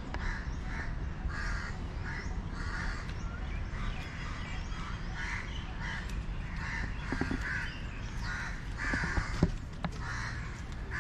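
Birds calling over and over, a short call repeated about once or twice a second, over a steady low rumble.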